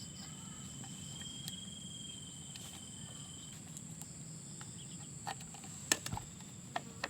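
Insects chirring in a steady high-pitched drone, with a second, lower insect tone for the first three and a half seconds. A few light clicks come in the second half, the sharpest about six seconds in.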